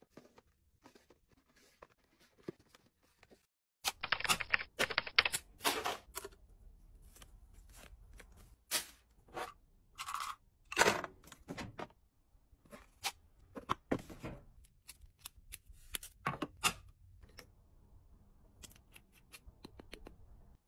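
Hands handling and arranging skincare packaging. At first there are faint taps of cardboard boxes being slid onto a shelf. About four seconds in the sound becomes louder, with crinkling and tearing of plastic packaging, then scattered clicks and taps of bottles and jars being set down and picked up.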